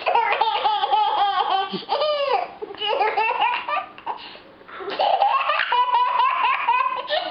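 A young child laughing in long, high-pitched bouts of rapid pulses, pausing briefly about four seconds in before laughing again.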